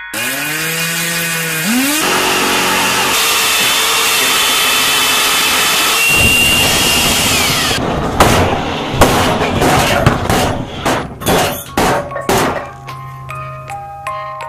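A music box movement's comb and pinned cylinder driven by a power drill chucked onto its crank: the notes glide up in pitch as the drill speeds up and blur into a dense buzzing smear of tones. About eight seconds in the mechanism breaks apart in a run of sharp cracks and rattles, leaving a steady low hum with a few stray notes near the end.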